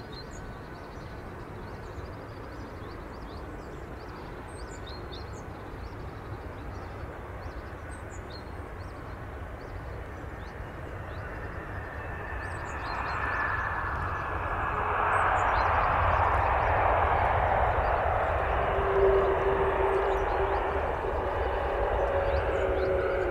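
Airbus A330-200 twin-engine airliner landing. A faint, steady jet hum on final approach gives way, soon after the main wheels touch down about halfway through, to a loud swelling engine roar typical of reverse thrust. A steady hum runs through the roar near the end.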